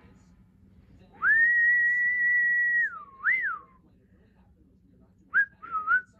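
African grey parrot whistling: one long level whistle held for about a second and a half, ending in a note that dips, swoops up and falls away, then a few short rising chirp-whistles near the end.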